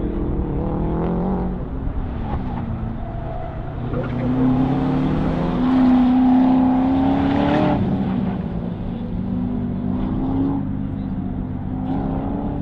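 C6 Chevrolet Corvette's V8 revving up and down as the car accelerates and brakes through an autocross cone course. It is loudest about halfway through, as the car passes closest.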